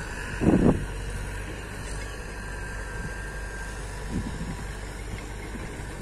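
Tata Hitachi crawler excavator's diesel engine running steadily, with a faint thin whine over its rumble. Wind buffets the microphone, hardest about half a second in.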